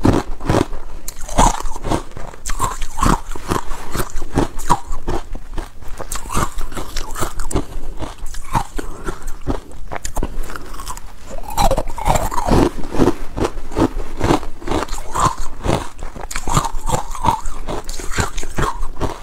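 Carbonated ice cubes being bitten and chewed right at a lapel microphone: loud crunching, several crunches a second in close succession.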